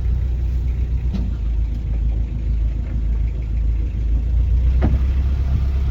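Narrowboat's inboard diesel engine running steadily, a low rumble.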